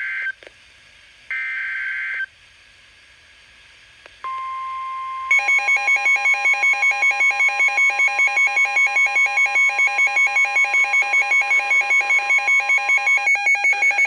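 NOAA Weather Radio emergency alert: the end of one warbling SAME data burst, then a second about a second later, followed by the steady 1050 Hz warning alarm tone. About five seconds in, a loud electronic alarm starts beeping about five times a second over the tone and keeps going after the tone stops near the end.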